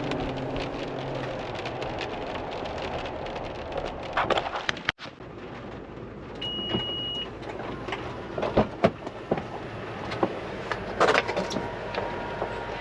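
Inside a car driving in the rain: steady road and rain noise with scattered clicks and knocks, and one short high beep about six and a half seconds in.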